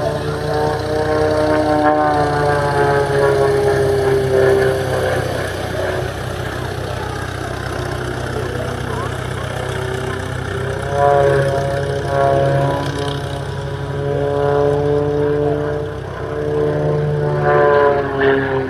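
Extra 300S aerobatic monoplane's six-cylinder piston engine and propeller heard from the ground, the note rising and falling in pitch as the plane manoeuvres, louder about eleven seconds in and again near the end.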